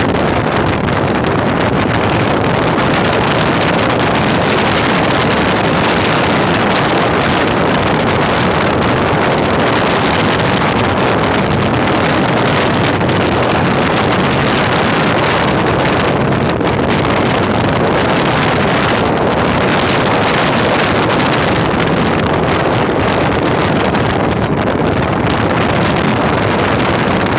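Wind buffeting the microphone over the running noise of a moving vehicle: a steady, loud, even rush.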